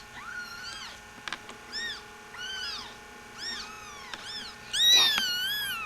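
Young kittens mewing over and over in short, high-pitched calls that rise and fall, about eight mews, with the longest and loudest one near the end.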